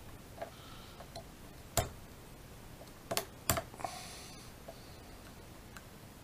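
A few sharp clicks and a brief scrape of a small hand tool working against a plastic model kit part, the loudest clicks a little under two seconds in and twice around three and a half seconds in.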